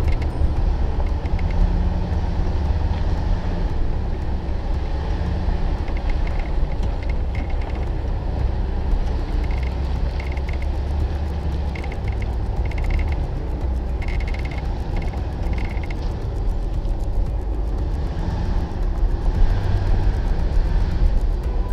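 4x4 driving slowly over a rocky dirt trail: a steady low rumble of engine and tyres on gravel, heard through a hood-mounted camera, with a few faint short high squeaks in the middle.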